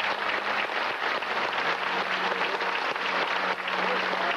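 Audience applauding steadily: a dense, continuous clapping.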